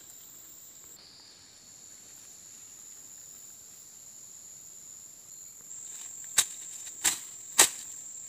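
A steady high-pitched buzz of insects throughout. Near the end, three sharp strikes land about half a second apart: a chopping tool hitting a felled log.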